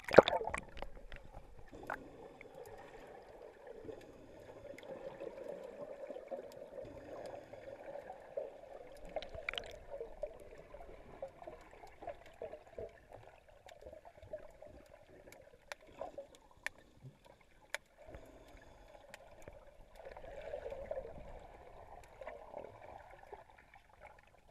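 Action camera plunging underwater with a splash, then muffled underwater sound through the waterproof housing: a steady dull water noise with scattered small clicks and crackles.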